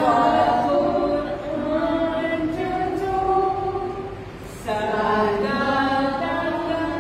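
A group of women singing together without accompaniment, with a short break between phrases about four and a half seconds in.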